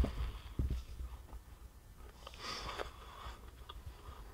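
Quiet mouth noises of a boy chewing a bite of microwaved chicken sandwich, with a short sniff about two and a half seconds in and a brief knock at the very start.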